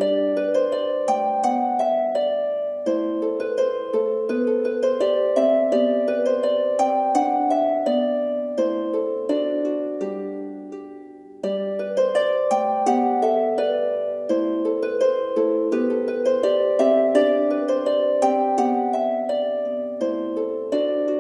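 Background music of gently plucked harp notes in repeating arpeggios. The phrase fades away about eleven seconds in, then starts over.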